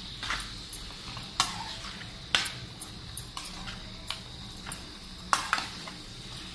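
A metal spatula stirring liver and skin pieces in a frying pan: irregular scrapes and knocks against the pan, with a few sharper clanks, over a faint frying sizzle.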